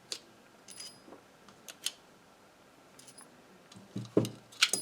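Plastic and metal parts of a relay clicking and clattering as its internals are pulled out and fall loose: scattered sharp clicks, with a heavier knock and a quick cluster of clicks near the end.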